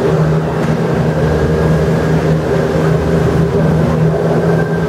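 Doppelmayr gondola lift station machinery running with a loud, steady hum: a low drone with overtones and a faint high whine above it.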